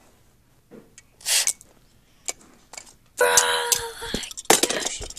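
A child's mouth sound effects for a toy-car crash: a short hissing whoosh about a second in, then a longer rasping vocal crash noise about three seconds in, followed by several sharp clacks of plastic toy cars knocking together near the end.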